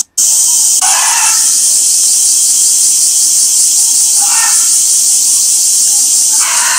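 Loud, steady drone of cicadas in summer, with three short voice-like calls over it: about a second in, at about four seconds, and near the end.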